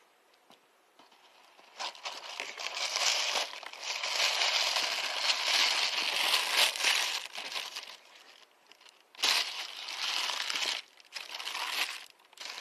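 Tissue paper crinkling and rustling as it is handled in a shoebox. It begins about two seconds in, runs as one long stretch, then after a short pause comes in two or three shorter bursts.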